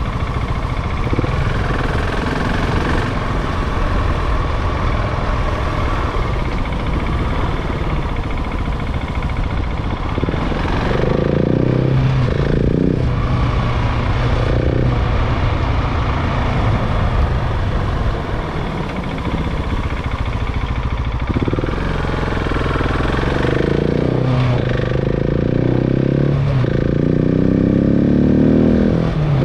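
KTM 690 Enduro single-cylinder engine being ridden, the engine note rising and falling as the throttle is opened and closed, over a steady rushing noise. The revs climb near the end.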